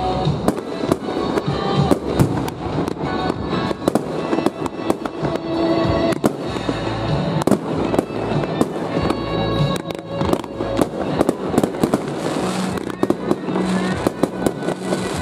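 Aerial fireworks shells bursting and crackling in rapid succession, several bangs a second, with music playing underneath.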